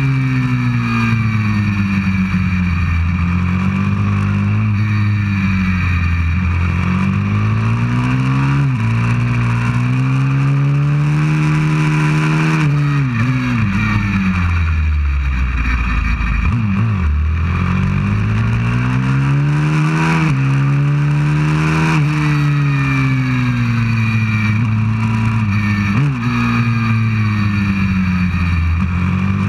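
190cc pit bike's single-cylinder four-stroke engine at full race pace, revving up along the straights, dropping at each gear change and falling off under braking into corners. The revs are lowest in the slowest corner about halfway through, then climb again.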